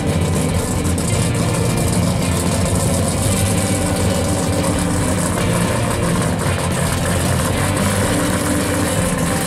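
Pro street 1970 Plymouth Cuda's engine idling steadily as the car creeps forward at low speed.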